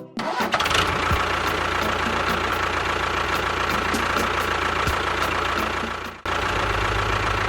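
A motor running steadily, cutting out briefly about six seconds in and starting again at once.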